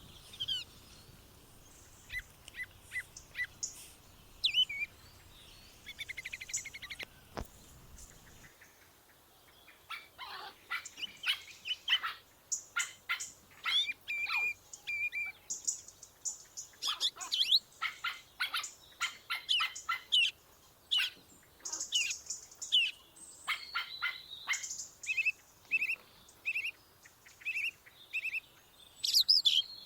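Songbirds chirping and singing, several short calls and trills overlapping, sparse at first and busier from about ten seconds in. A faint low rumble underneath stops about eight seconds in.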